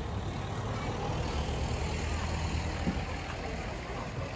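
A motor vehicle passing on the street: a low engine hum and tyre noise that build through the middle and ease off toward the end, with a short knock about three seconds in.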